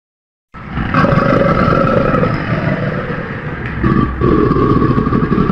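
Stock crocodile roar sound effect for a cartoon crocodile: a long, rough, growling roar starting about half a second in, dipping briefly a little before the four-second mark, then a second long roar.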